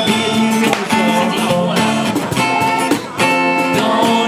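Acoustic guitar being strummed and picked: live, homemade music with held chords that change about every second.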